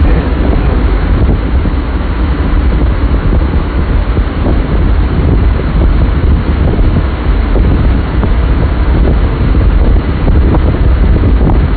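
Strong fan-driven wind from a wind-machine exhibit buffeting the phone's microphone: a loud, steady rush with heavy low rumble.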